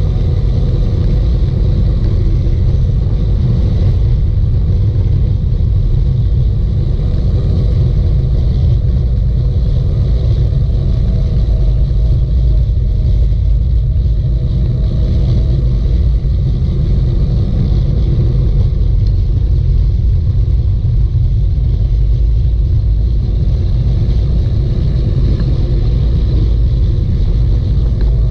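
Wind buffeting the microphone of a camera riding along on a fast bicycle descent: a loud, steady low rumble that never lets up.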